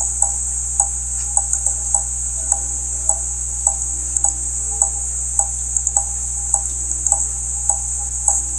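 Steady, evenly paced ticking, a little under two ticks a second, over a constant high-pitched hiss of white noise and a low hum.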